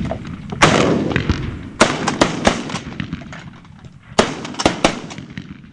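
A volley of shotgun blasts from several shooters firing at a flock of pigeons, about seven shots in three quick bunches, each blast trailing off.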